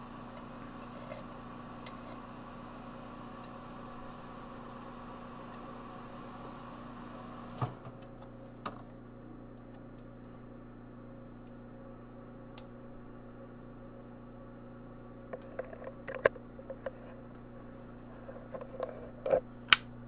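Microwave oven running with a steady hum and whine, cut off by a sharp click about eight seconds in as the oven is opened. A low hum remains, with scattered clicks and rattles near the end.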